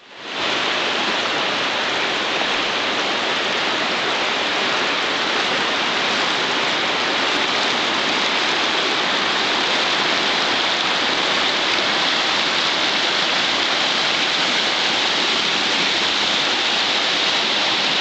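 Water of the Yadkin River rushing steadily over shallow rocky rapids, a constant even hiss.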